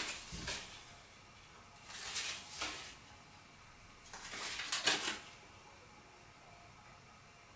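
Playing cards rustling and clicking as they are handled and squared in the hands, in three short bursts about two seconds apart.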